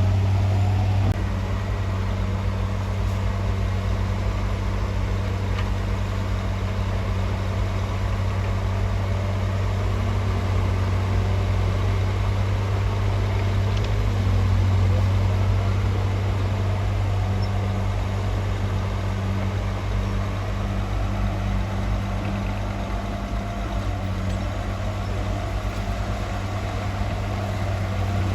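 Heavy construction machine's diesel engine running steadily with a low, even drone.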